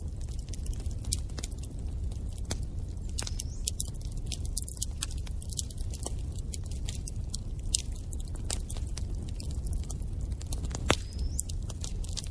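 Wood fire in a fireplace crackling: irregular sharp pops and snaps over a steady low rumble of burning. Two louder pops come in the second half.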